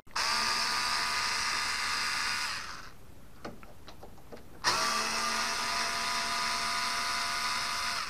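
Cordless drill-driver backing out the two latch screws from a door edge: two runs of steady motor whine, the first about two and a half seconds long, then after a short pause with a couple of faint clicks, a second run that lasts to the end.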